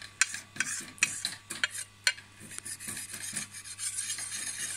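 A small sharpening stone scraped along the steel blade of a billhook to take off the burr: a quick run of short, sharp strokes over the first two seconds, then steadier, closer-spaced rubbing.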